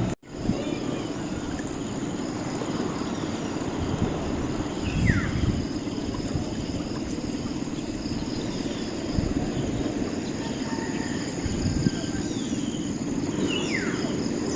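Outdoor ambience: a steady noise bed with insects chirping continuously, and two short falling bird calls, about five seconds in and near the end.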